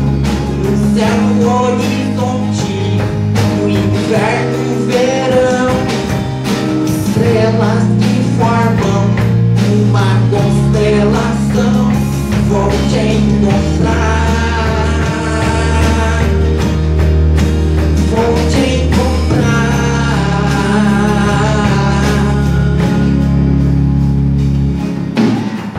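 Live band music: acoustic guitar over sustained low bass notes, with a melodic line and some wordless singing, in an instrumental stretch between sung verses.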